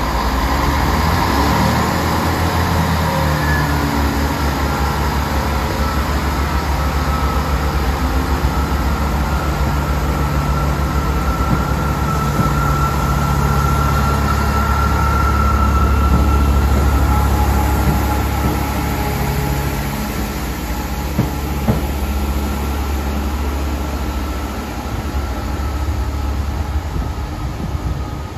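Class 165 diesel multiple unit pulling out under power: a deep, steady engine hum with a faint whine over it, loudest about halfway through, then fading as the train draws away.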